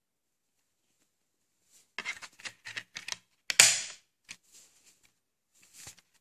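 Plastic DVD case clicking and rattling as the disc is handled, then a loud snap about halfway through as the disc is pressed down onto the case's centre hub, followed by a few fainter clicks.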